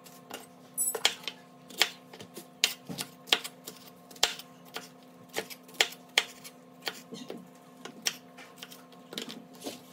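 Chef's knife slicing a green bell pepper on a wooden cutting board: a run of sharp, uneven knocks, about two a second, as the blade strikes the board.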